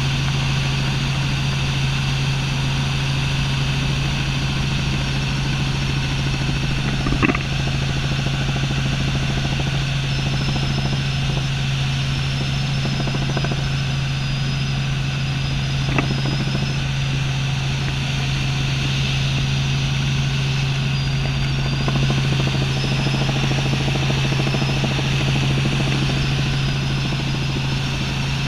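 Robinson light helicopter in cruise, heard inside the cabin: the engine and rotors make a steady drone with a strong low hum. There are two brief clicks, about seven and sixteen seconds in, and a faint wavering high whine from about ten seconds on.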